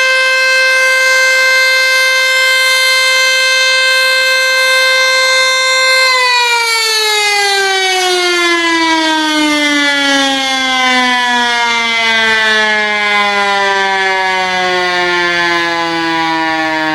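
ACA Screamer S-5 outdoor warning siren sounding a steady alert tone. About six seconds in, its pitch begins to fall in a long, smooth slide as the siren winds down.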